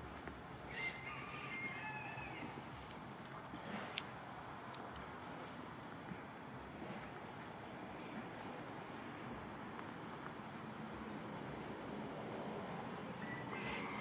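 Insects droning in one steady, high-pitched tone. A few short high chirps come about a second in and again near the end, and there is one sharp click about four seconds in.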